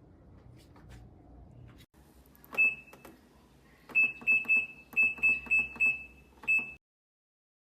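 Kolin BW-13S02 washing machine's control panel beeping as its buttons are pressed: about nine short, high beeps, all at the same pitch, each starting with a click. One comes a little under three seconds in and the rest follow in a quick run.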